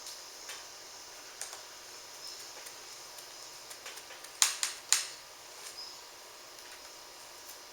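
Small metal-on-metal clicks and taps from a screwdriver and the tiny screws that hold a laptop screen's metal mounting brackets, with three sharp louder clicks in quick succession about halfway through.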